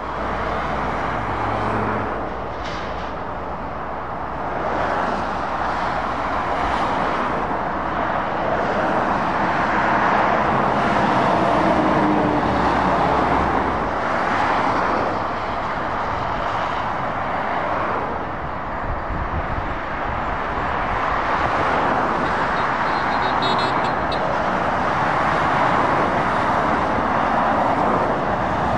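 Road traffic noise from lorries and cars passing on a dual carriageway: a steady tyre roar and engine drone that swells and fades as each vehicle goes by.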